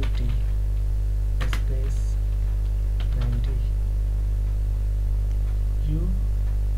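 A few computer keyboard keystrokes, sharp single clicks spread over the first few seconds, under a loud steady electrical mains hum.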